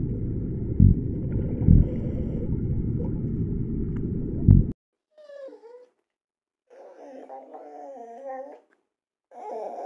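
A low underwater rumble with three dull thumps, which cuts off sharply about halfway through. Then an English bulldog whines in three short bouts; the first is a brief falling whimper.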